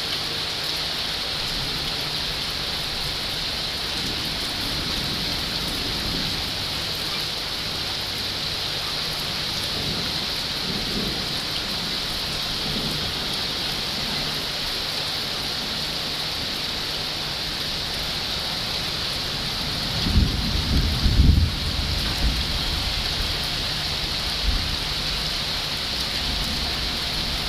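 Heavy rain falling steadily, with a low rumble of thunder about twenty seconds in.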